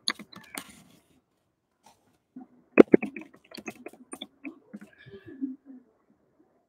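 Quick bursts of clicks and taps, typical of typing on a laptop keyboard: one cluster right at the start and a longer run about three seconds in. Faint low sounds follow near the end.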